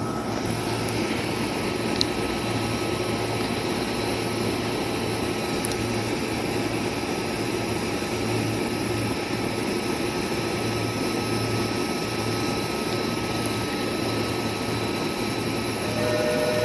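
Sotetsu 11000 series electric train standing at a platform, its onboard equipment running with a steady hum and whine over a low, pulsing drone. A single click comes about two seconds in, and near the end a steady two-note tone joins and the sound gets a little louder.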